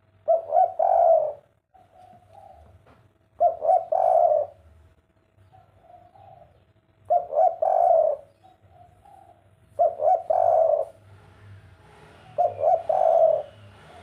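Spotted dove (derkuku) singing its 'kuk 3' coo five times, each phrase a few quick short notes running into a longer coo. Softer coos come in between the phrases.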